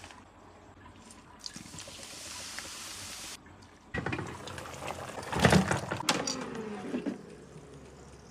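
Water running from a tap in a steady hiss for about two seconds, then cutting off. This is followed by kitchen clatter and knocks.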